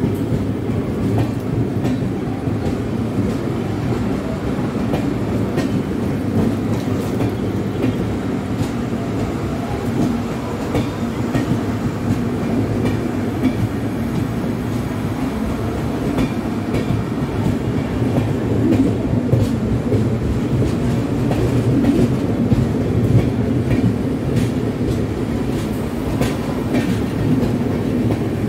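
LHB passenger coaches of an express train rolling past close by on the adjacent track: a steady rumble of wheels on rail, with irregular clatter over rail joints. The sound swells slightly about two-thirds of the way through.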